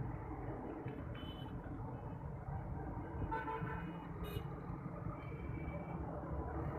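Busy street traffic: a steady rumble of car and motorcycle engines, with short horn toots about a second in, around three seconds in and near five seconds.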